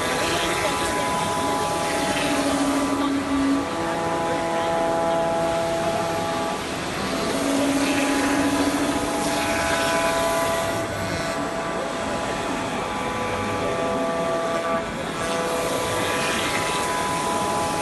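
SG2540T-3S CNC router running as it machines a wooden pattern: a steady high whine in several pitches, with a lower tone that starts and stops every few seconds, over a dense background hiss.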